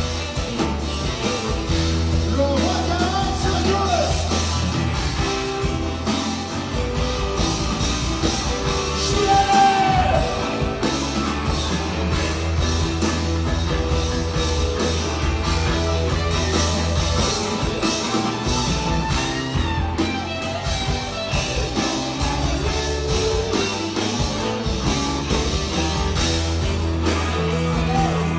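A live rock band playing, with electric guitar and a steady bass line under a sung vocal.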